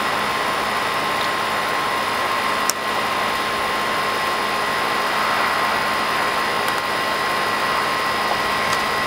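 Steady, loud roar of nearby highway traffic, with a faint steady high tone over it and a single click about three seconds in.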